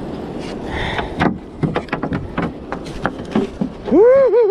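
Knocks and taps on the boat as gear and the landed catch are handled aboard, followed near the end by a loud high call whose pitch rises and falls three times.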